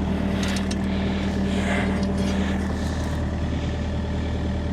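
Kobelco excavator's diesel engine running steadily at idle, with a higher hum in it that drops away about three seconds in.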